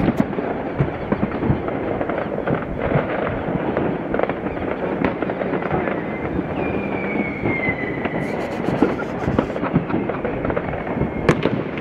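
New Year's fireworks going off across a city: a continuous dense crackle of many overlapping pops and bangs. About six and a half seconds in, a thin high whistle starts and slides slightly down in pitch for several seconds.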